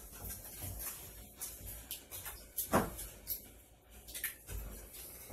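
Wooden spoon stirring and breaking up stewed tomatoes in a bowl, with irregular knocks and scrapes against the bowl, the loudest about three seconds in.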